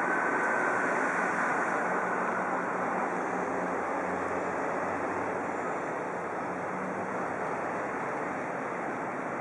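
Trensurb Hitachi-built electric multiple unit pulling away and receding down the line: a steady rushing noise that slowly fades, with a high whine dying away in the first two seconds.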